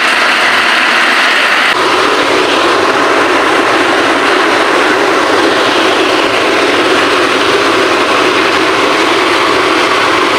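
A pot of fish broth boiling hard: a loud, steady bubbling noise.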